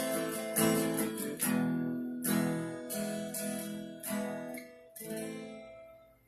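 Acoustic guitar strumming the closing chords of a song, about one strum a second, each chord ringing and fading; the last chord dies away near the end.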